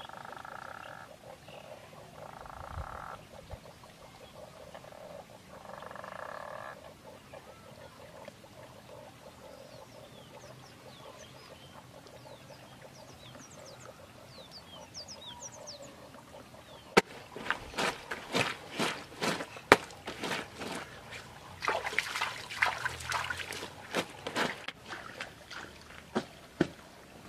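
Frogs croaking, three short calls in the first seven seconds, followed by faint high chirps. From a little past the middle a rapid, uneven series of sharp clicks and taps takes over.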